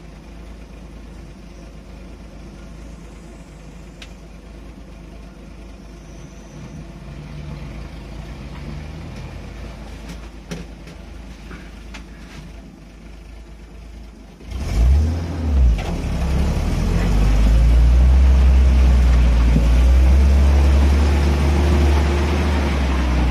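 Off-road vehicle engine running low and steady, then revved hard about two-thirds of the way in: two quick blips, then held at high revs. This fits forcing the vehicle through deep creek mud.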